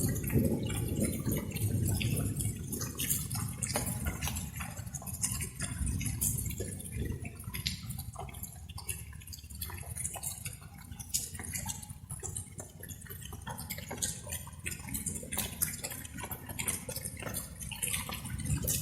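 Light rain, with many separate drops dripping and tapping irregularly over a steady low rumble.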